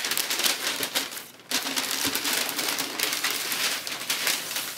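Packaging material being handled: a dense crinkling and rustling made of many small crackles, which dies down briefly about a second in and then goes on.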